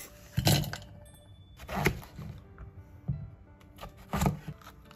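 Kitchen knife cutting vegetables on a wooden cutting board: three sharp knocks of the blade on the board and a couple of fainter ones, over light background music.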